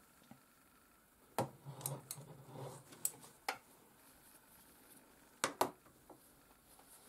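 Hands handling a cloth and small items on a quilt at a sewing machine: a few sharp clicks and taps with some soft rustling between them.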